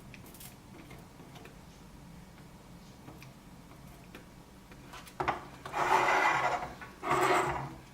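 A click about five seconds in, then two rasping rubs or scrapes of under a second each.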